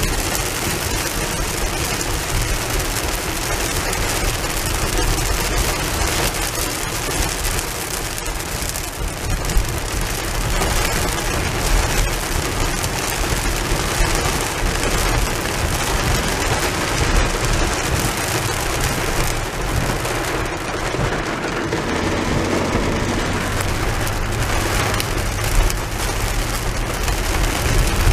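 Rain falling steadily on a car's roof and windshield, heard from inside the cabin as a dense, even patter, with the low hum of the car moving on the wet road underneath.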